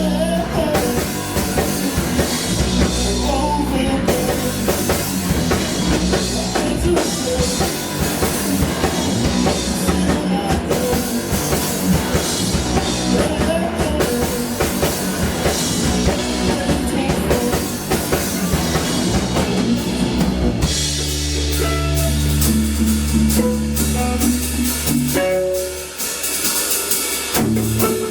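Live rock band playing, drum kit and guitar driving a steady beat. About three-quarters of the way through the drums drop out, leaving held low notes under single guitar notes.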